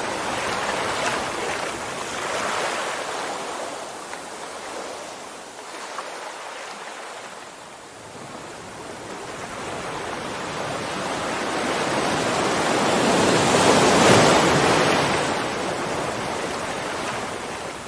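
Ocean surf: waves breaking and washing up the beach, a steady rushing noise that swells and fades, loudest about fourteen seconds in.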